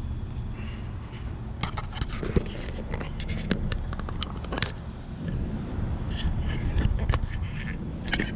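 Irregular metallic clicks, clinks and scrapes of tools and fittings being handled, over a steady low rumble. The clicks start about a second and a half in and come thickest in the middle and near the end.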